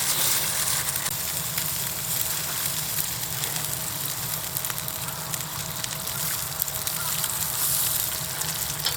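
Squid sizzling and crackling as it cooks over high heat, a steady hiss with many small pops.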